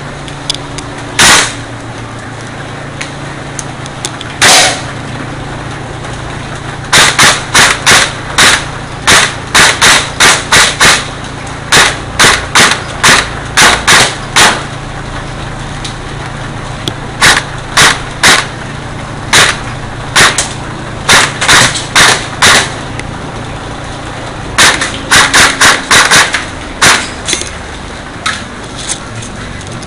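Airsoft gun firing close by: sharp single cracks, mostly in quick strings of several shots with short pauses between the strings.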